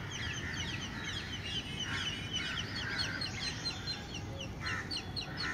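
Birds chirping in a rapid, continuous series of short high notes, several a second, with a few lower, harsher calls mixed in over a steady low background rumble.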